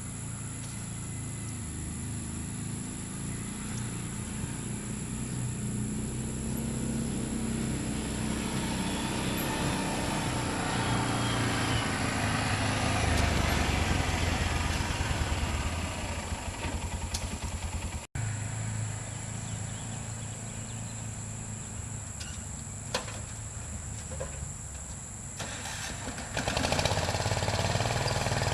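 Allis-Chalmers 716 garden tractor engine running steadily and growing louder over the first half. The sound drops out for an instant about two-thirds of the way in, then the engine runs on and gets louder again near the end.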